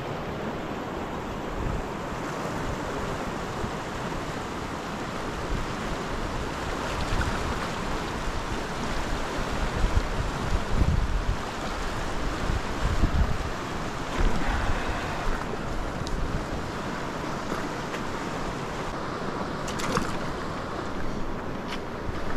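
Steady rush of the South Platte River, running a little high, with gusts of wind rumbling on the microphone, strongest about halfway through.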